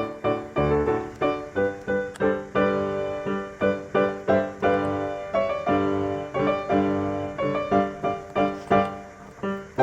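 Background piano music: a steady run of struck notes, each fading quickly before the next.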